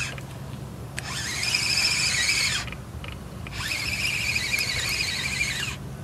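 Spinning reel on a feeder rod being cranked to wind in line: a high, fast-rippling whir in three runs of about two seconds each, its pitch rising as the handle gets going and dropping as it slows, with brief pauses between turns.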